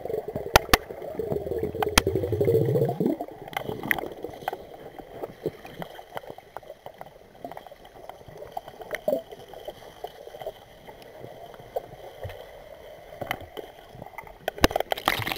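Pool water heard from underwater: a low bubbling rumble for the first few seconds, then a quiet hiss with scattered sharp clicks and knocks, and a louder burst of sloshing water near the end.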